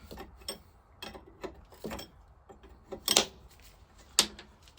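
Scattered light metallic clicks and taps of a spanner working a nut on an engine's vaporiser, with a sharper knock about three seconds in and another near the end.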